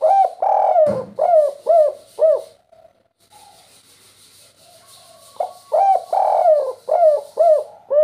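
Spotted dove (tekukur) cooing its 'kuk 3' song: two runs of short, falling coos, the second note of each run longer than the rest, the second run starting about three seconds after the first ends.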